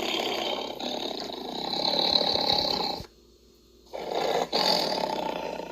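Tiger roaring: a long, rough roar of about three seconds, then after a pause of about a second a second roar of about two seconds.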